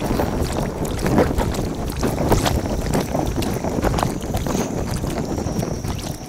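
Kayak paddling in sped-up time lapse: quick, repeated paddle splashes and knocks over water, with wind rumbling on the microphone.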